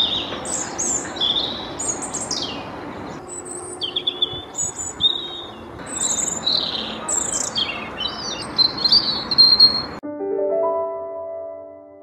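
European robin singing: a string of short, high, varied warbling phrases with quick rising and falling notes and trills. About ten seconds in, the song stops and a short musical jingle of held notes plays.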